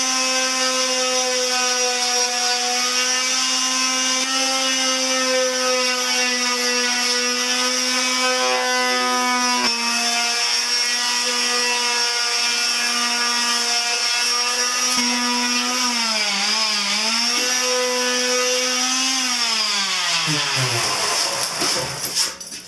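Electric palm sander running against the painted gas tank with a steady pitched motor hum; the pitch wavers briefly about two-thirds of the way through, then the sander is switched off and its motor winds down near the end.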